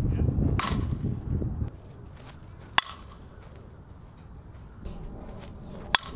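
Softball bat hitting pitched softballs: three sharp cracks, about half a second in, just under three seconds in, and near the end. The first comes over a loud low rumble that drops away about a second and a half in.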